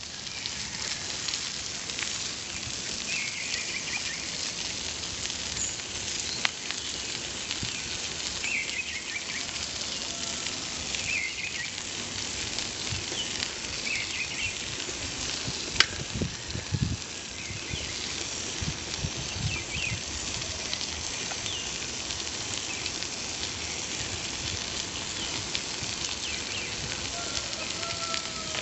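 Steady hissing rush of a bicycle ride on asphalt, from wind on the microphone and tyres rolling, with faint short high chirps every few seconds. A sharp click comes about 16 s in, followed by a few low thuds.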